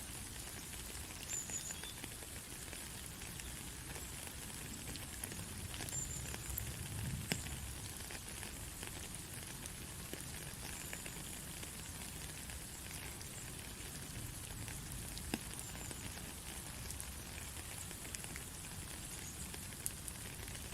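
Steady rain falling: an even hiss with a few sharp drop ticks here and there.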